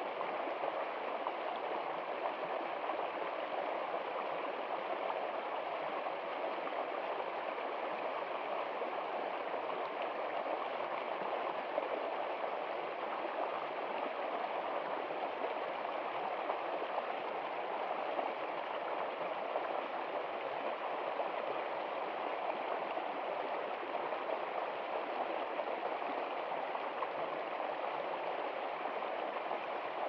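Small creek running steadily over rocks, an even rushing and gurgling of water with no change in strength.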